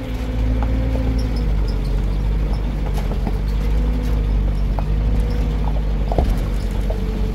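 A motor vehicle's engine running steadily, with a deep continuous rumble and an even engine note, and a few light clicks and knocks.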